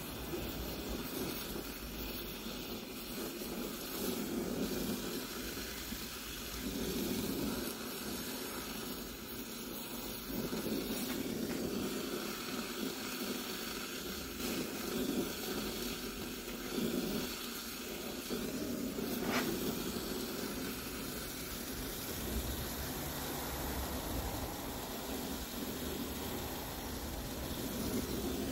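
Gas welding torch (chalumeau) flame hissing steadily as it heats metal to red for welding with a filler rod, with a single short click about 19 seconds in.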